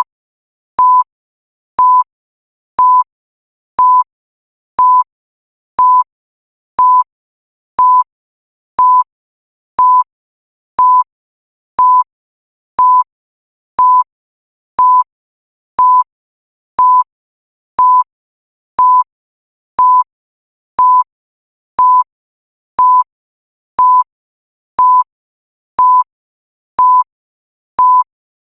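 Digital countdown timer beeping once every second: a short, pure electronic beep, evenly spaced, marking off each remaining second of the countdown.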